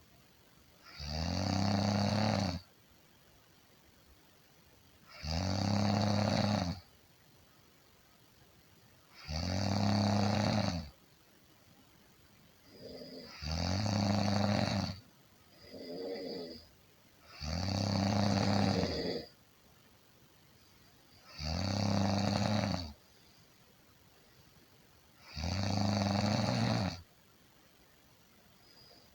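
A person snoring deeply, one long low rumbling snore about every four seconds, seven in all. About halfway through there is a shorter, fainter snore between two of the long ones.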